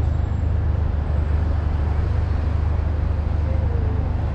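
City street ambience: a steady low rumble of road traffic under general outdoor noise.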